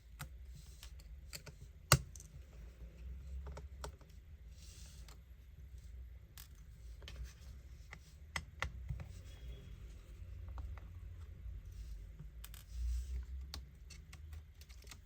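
Scattered small clicks and scratches of a precision screwdriver and the tiny screws holding a laptop's cooling fan being unscrewed, with one sharper click about two seconds in.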